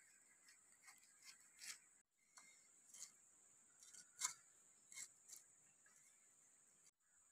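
Faint ticks, then a cleaver cutting pineapple: several light chops and scrapes of the blade, the loudest a little after four seconds in, over a steady high hiss.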